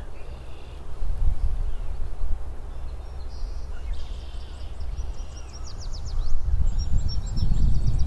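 Low rumble on the microphone that swells near the end, with faint bird calls from the marsh: a couple of short calls a few seconds in, a quick run of falling notes about five seconds in, and more chips near the end.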